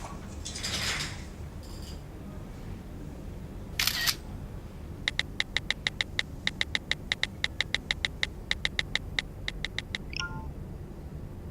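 A rapid run of sharp clicks, about five a second for some five seconds, each with a short bright ring, after a single louder burst.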